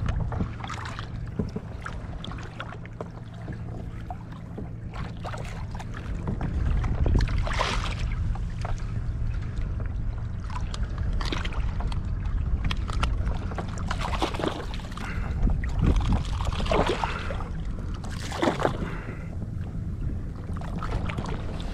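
Small waves slapping and lapping against a kayak hull in short splashes every few seconds, over a steady low rumble of wind on the microphone.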